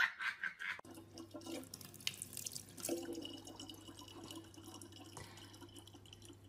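Thin stream of water from a faucet trickling into a large plastic water bottle, faint and steady.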